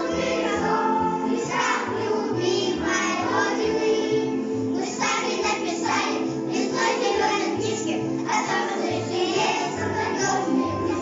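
Children singing together as a group, over a steady musical accompaniment.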